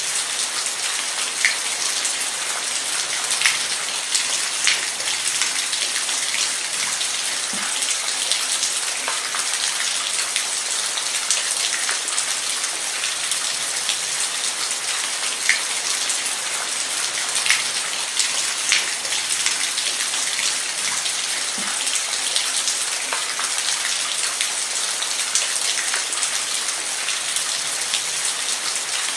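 Steady rain falling, an even hiss with individual drops ticking sharply on a surface here and there.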